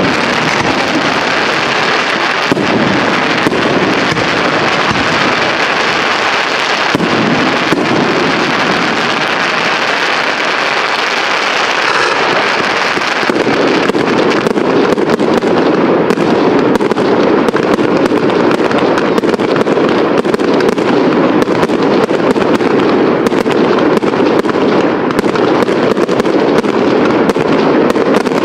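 Fireworks display: a dense, continuous crackling and popping of bursting aerial shells. From about halfway a steadier rushing sound joins in underneath.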